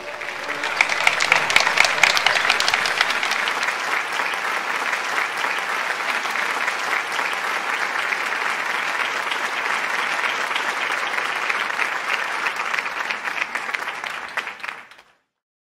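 Audience applauding: many hands clapping at a steady level, which stops abruptly about fifteen seconds in.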